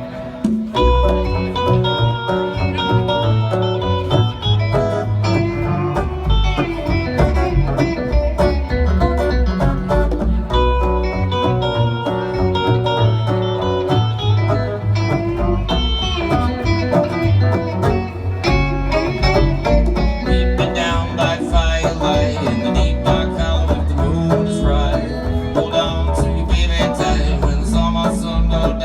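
Instrumental break of a bluegrass song: acoustic guitar and banjo picking over a steady bass, with no singing.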